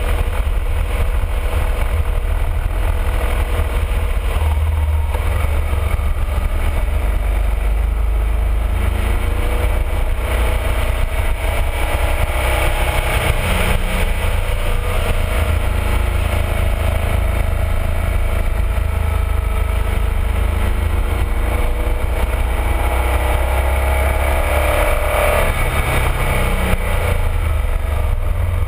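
BMW R1200RT boxer-twin engine running under way, its revs climbing twice, about ten seconds in and again near the end, under heavy wind rumble on the fairing-mounted microphone.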